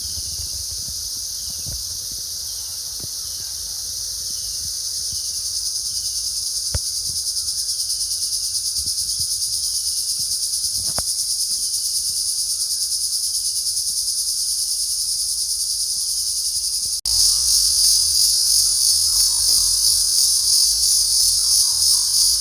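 Singing insects calling in a steady, high-pitched shrill with a fast pulsing rhythm. About three-quarters of the way through it cuts abruptly to a louder, harsher insect call.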